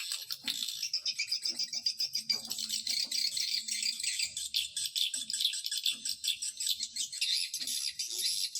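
Swiftlet call recording, the lure sound played to draw swiftlets to a nesting house: a dense, unbroken chatter of rapid high chirps and twitters from many birds.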